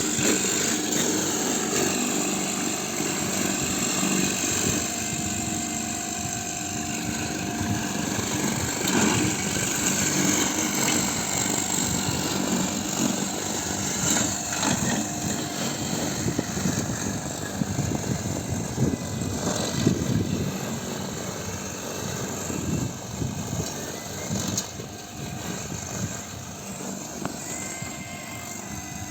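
Lawn mower running steadily, its motor and cutter giving a continuous mechanical drone that eases a little over the last few seconds.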